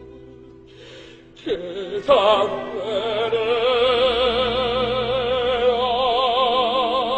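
Operatic singing with orchestra: a held note fades, and after a brief lull a strong sung note with wide vibrato comes in about two seconds in and is held.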